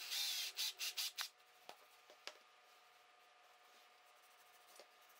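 Cordless drill boring a small hole into a walnut block: the bit cuts for about half a second, then four short bursts of drilling about a second in, followed by two light knocks.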